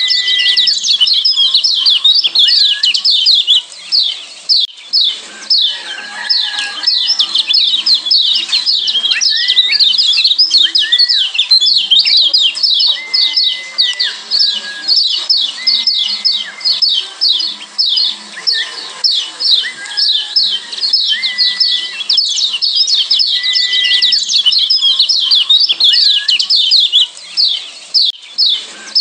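Kecial kuning (Lombok yellow white-eye) giving its rapid 'ciak' call, a long unbroken run of quick high chirps with short level whistled notes underneath now and then. The chirping lulls briefly about four seconds in and again near the end.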